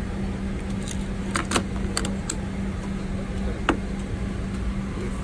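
A plastic in-seat phone handset is pushed into its armrest compartment, and the lid clicks shut: a cluster of sharp clicks and knocks about a second in and one more click near four seconds. Under them is the steady rumble and hum of a Boeing 777-300 airliner cabin.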